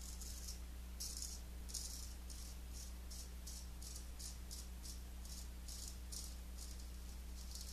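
Gold Monkey 777 straight razor scraping through lathered stubble on the upper lip in short, quick strokes, about three a second.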